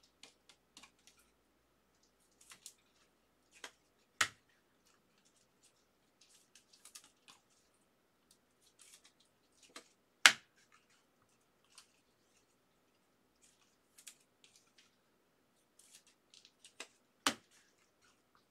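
Chromium trading cards being handled and flipped through by hand: scattered soft clicks and scrapes of card edges, with three sharper clicks about four, ten and seventeen seconds in.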